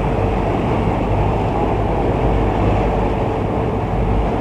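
Steady low rumble of a running vehicle, with a faint even hum above it.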